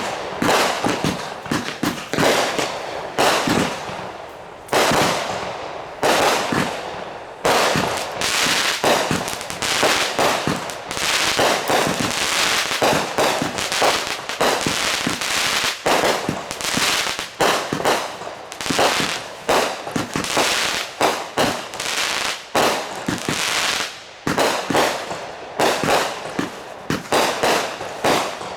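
Consumer fireworks going off in quick succession: sharp bangs, several a second, with no let-up.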